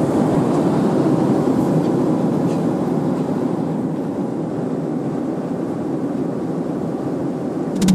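Steady rushing roar of a jet airliner cabin in flight, engine and air noise without distinct tones. A falling tone sweeps in right at the end.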